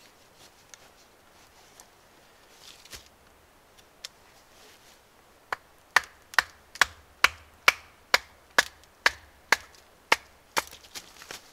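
A board of wood being split into kindling: about a dozen sharp wooden knocks, roughly two a second, starting about halfway through, with a few smaller cracks after them.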